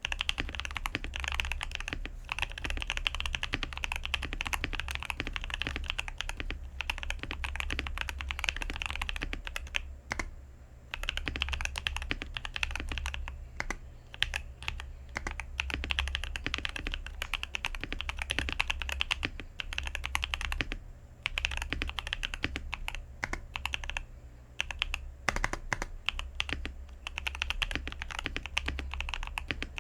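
Zifrined ZA646 mechanical keyboard being typed on quickly: dense runs of key clacks, broken by a few short pauses.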